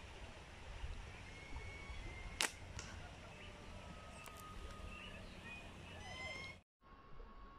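Slingshot shot: the rubber bands snap forward as a steel ball is released, one sharp crack about two and a half seconds in, with a fainter click just after. Faint high chirps sound in the background.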